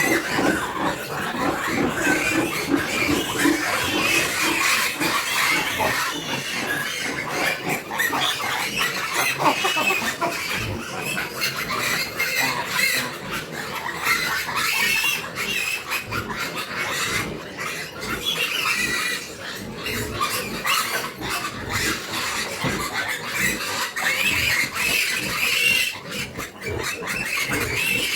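Several piglets grunting and squealing, their high calls overlapping without pause.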